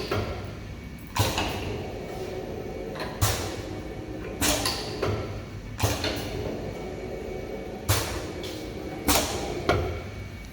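Semi-automatic two-head lip gloss filling machine cycling on foot-pedal triggers: about seven sharp clicks, each with a short hiss, at uneven one-to-two-second intervals over a steady low hum.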